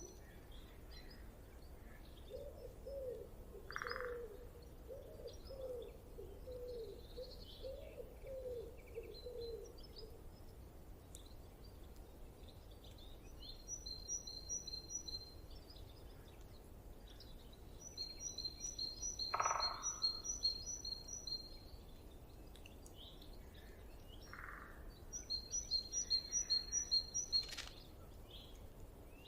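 Forest birds calling. A small bird gives several rapid runs of high, evenly repeated chirps lasting a few seconds each, and a lower wavering call runs for several seconds near the start. A few short calls come from other birds, over a steady low background rush.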